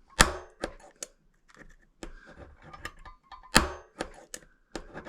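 Scattered sharp clicks and taps from a spring punch and the stone arrowhead preform being worked and handled on a hard surface, two louder snaps about a quarter-second in and about three and a half seconds in. This is an attempt to pop off a turtleback hump, which does not come off.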